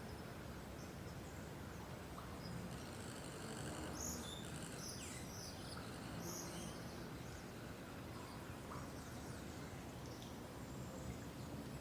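Birds chirping: a quick cluster of short, high calls in the middle, over a steady low background noise.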